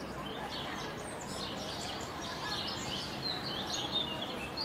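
Many small birds chirping and twittering in quick overlapping calls, over a steady hiss of outdoor ambience.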